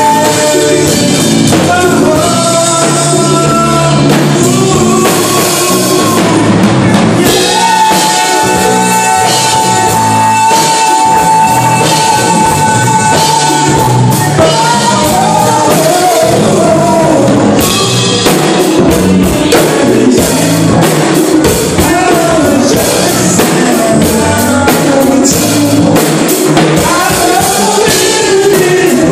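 Loud music with singing over drums; the voice holds long, steady notes, one lasting several seconds about a third of the way in.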